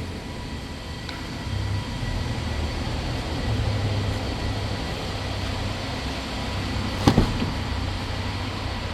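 Steady low background hum, with a single sharp slam about seven seconds in: the hood of a 2023 Toyota Tacoma pickup being shut.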